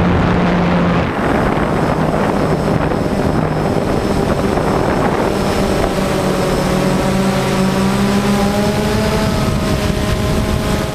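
DJI Phantom quadcopter's four electric motors and propellers buzzing steadily in flight, heard from on board the drone, with a whine that wavers slightly in pitch.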